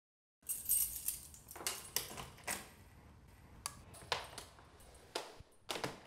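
Dishes and cutlery clinking and clattering in irregular light strikes, starting about half a second in.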